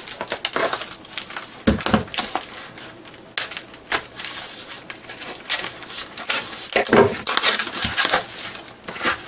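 A knife slitting open a tape-wrapped package: scraping and clicking as the blade cuts through tape and wrapping, crinkling and tearing as the wrapping is pulled open, with a few sharper thumps of the package against the table.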